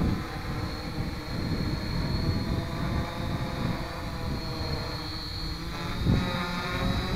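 Tarot 680 Pro hexacopter's six electric motors and propellers whirring as it hovers low, their pitch shifting a little near the end, over an uneven low rumble of wind on the microphone.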